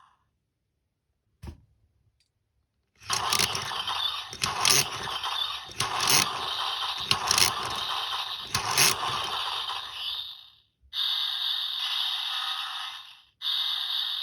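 DX Chilsonite Sword toy's speaker playing its finishing-move sound effects. A single click comes about a second and a half in, then about two seconds later a long run of crackling electronic effects with several sharp cracks, followed by steadier electronic tones after a short break.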